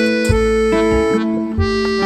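Background music: a melody of held notes over a low bass line that changes about every half second.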